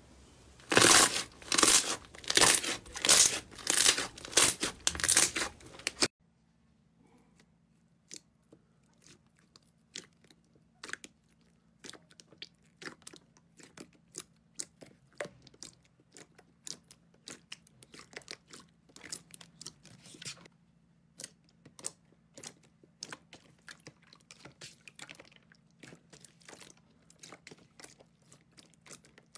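Hands pressing and squeezing slime. For about the first six seconds, clear slime with a mound of white fluffy slime gives loud bursts of crackling pops. After that, thick green slime kneaded with both hands gives quieter sticky clicks and squelches, several a second.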